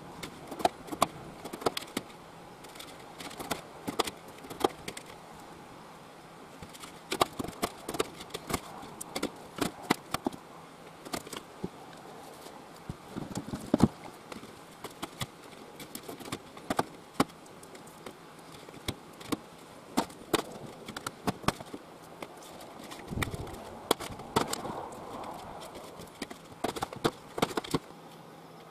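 Irregular sharp clicks and knocks of hand food preparation, with a spatula, plastic plates and containers handled and set down on a stainless steel sink bench, over a faint steady hum.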